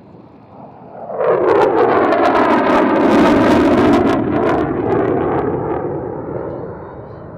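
Boeing EA-18G Growler's twin General Electric F414 engines in afterburner as the jet turns overhead: a loud jet rush that comes in suddenly about a second in, with crackling through the middle, then fades away.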